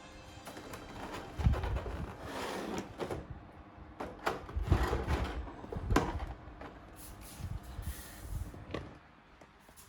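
Cardboard box and packaging trays being handled: irregular sliding, rustling and knocks with a few low thumps, dying down near the end.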